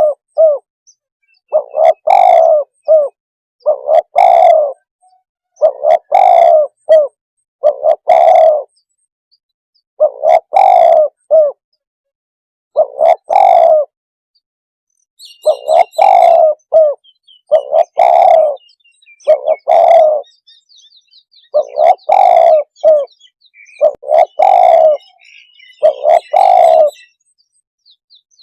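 Spotted dove cooing: loud, repeated multi-note coo phrases about every two seconds, each under a second long. Faint high chirps of small birds join in the second half.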